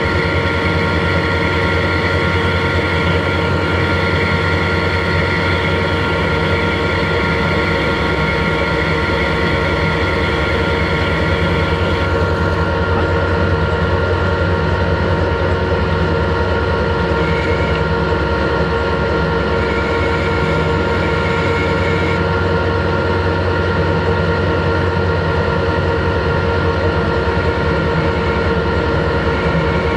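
Harrison lathe running steadily, its gearing giving a constant hum and a whine of several steady tones, while a carbide-insert tool turns a relief groove on a pin ahead of threading. About twelve seconds in the higher hiss drops away.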